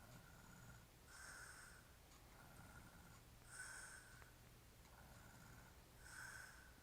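Faint snoring of a man passed out drunk: a snorting breath about every two and a half seconds, with a softer breath between each.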